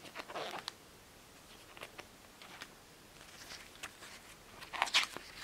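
Paper and cardboard being handled: scattered light rustles and taps, with the loudest swishing rustle near the end.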